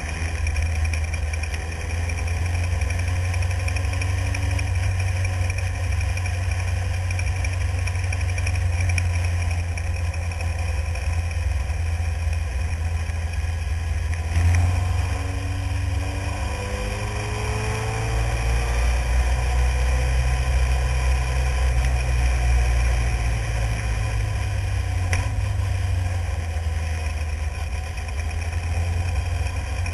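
Renault engine of a Formula Renault single-seater running at speed, recorded onboard under a heavy deep rumble. A sharp knock about halfway through, after which the engine note climbs as the car accelerates.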